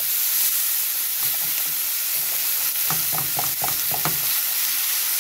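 Chicken tenderloins sizzling in hot oil in a frying pan, a steady hiss, while a slotted spatula scrapes and taps the pan as the pieces are turned, in a quick run of short strokes about three seconds in.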